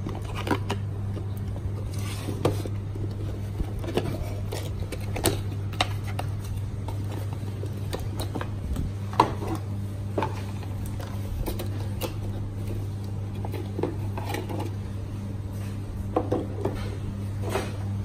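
Handling noise from unpacking a plastic wavemaker controller and its cables from a cardboard box: scattered, irregular clicks and knocks over a steady low hum.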